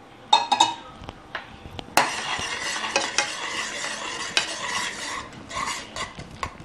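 A metal spoon stirring thick reduced milk mixed with caramel syrup in a pot: brisk wet, scraping strokes against the pan, starting with a sharp knock about two seconds in.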